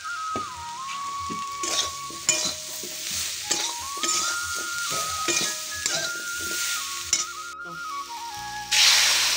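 Metal spatula scraping and clinking against a kadai as spice-coated vegetable stalks are stir-fried, with a light sizzle. Near the end, water poured into the hot pan sets off a sudden loud hiss. Background music with a stepping melody plays throughout.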